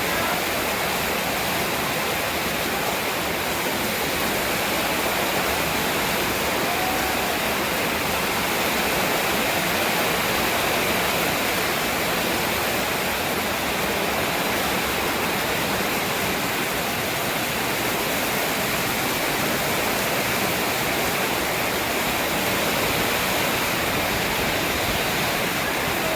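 Heavy rain pouring down in a storm, a steady, dense rush with no let-up.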